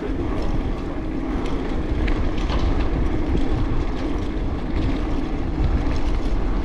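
Steady wind rumble on a GoPro microphone while riding a road bike, with a few faint ticks over it.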